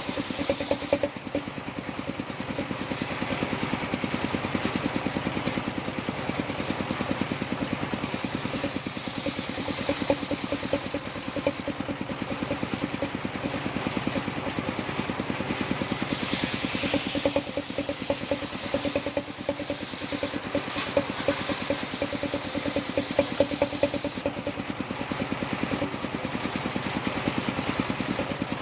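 Sawmill machinery running steadily, driven by an engine with a fast, even beat under a steady hum. There is a brighter, hissier stretch around the middle.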